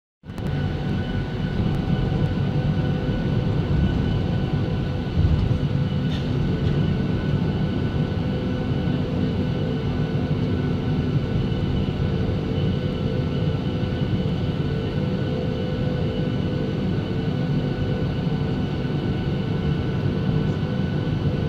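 Cabin noise inside a Boeing 737 taxiing on the ground: a steady rumble with the jet engines' steady whine above it, and a single thump about five seconds in.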